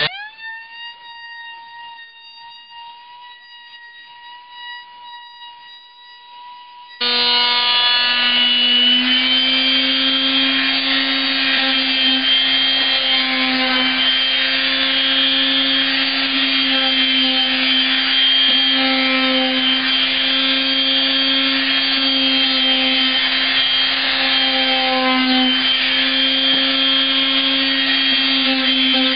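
Electric palm sander spinning up with a short rising whine, then running steadily. About seven seconds in it turns suddenly much louder into a dense, steady buzz as it sands the wooden drawer frame with fine 220-grit paper, going over the edges and corners.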